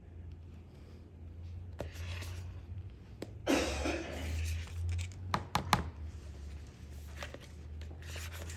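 A metal spoon scraping Cool Whip out of a plastic tub and dropping it into a mixing bowl: a soft scraping plop about three and a half seconds in, then a few sharp clicks of the spoon against the tub.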